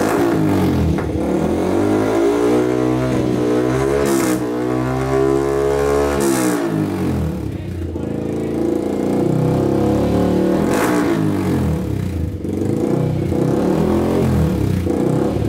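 Yamaha R15 V3's 155 cc single-cylinder engine, breathing through an aftermarket MIV exhaust, revved at a standstill. The pitch climbs and falls in one long sweep over the first six seconds, then goes up and down in quicker, shorter throttle blips.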